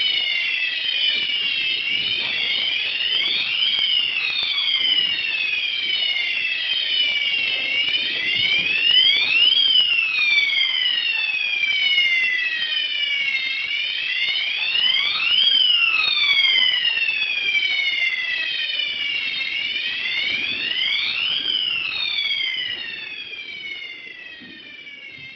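Fire alarm sirens wailing, several high electronic tones sweeping up and down in pitch and overlapping out of step with one another, fading out near the end.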